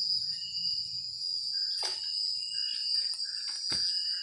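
Night insect chorus: a steady high trilling with shorter chirps over it, and a couple of sharp knocks from handling.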